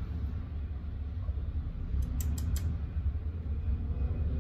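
Drinking from a plastic shaker bottle, with a quick run of about four sharp creaks or clicks about two seconds in, over a steady low rumble in the vehicle cabin.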